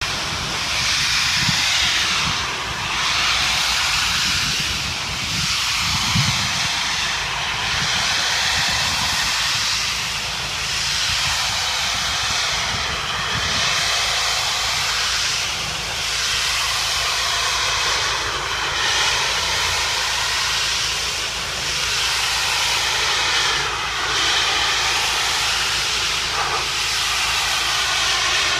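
Pressure washer spraying a steady high-pressure hiss of water, swelling and fading about every two and a half seconds.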